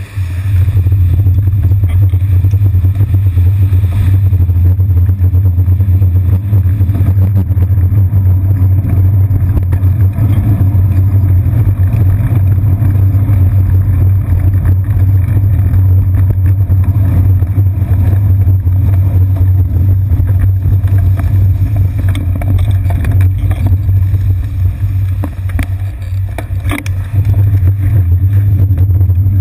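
Steady, loud low rumble of a bicycle riding over city pavement, picked up by a seat-post-mounted GoPro Hero 2, with the traffic of buses and taxis passing close by. It eases briefly near the end, where there are a few short knocks.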